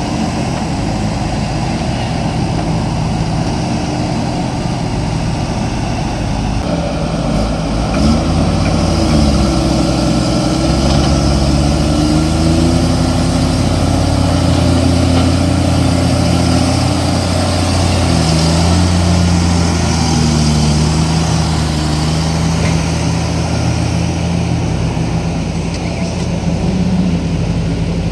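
Diesel engine of a JCB backhoe loader running, revving up about eight seconds in and then rising and falling in pitch as it works under load.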